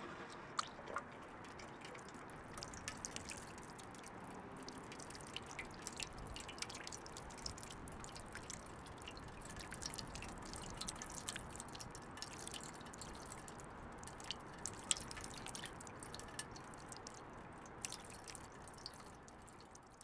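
Water fountain running: steady splashing water with many small, sharp drips and droplet splashes.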